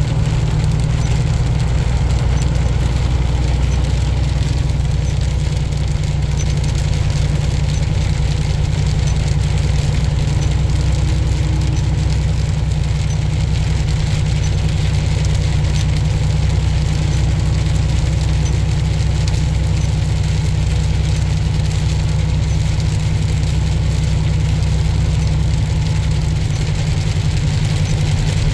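Semi-truck diesel engine droning steadily while the truck drives at a constant pace, heard from the cab, with an even hiss of road and weather noise over it.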